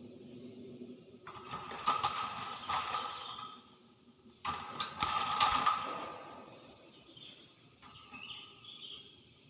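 Pet hill myna making harsh, rasping calls with sharp clicks in two bursts, one a little over a second in and one about four and a half seconds in, with a fainter call near the end.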